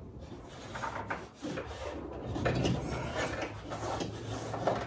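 Power liftgate strut's wiring harness being fed through a hole in the rear hatch: the plastic connector and wires rub and scrape irregularly against the opening, with a few light knocks.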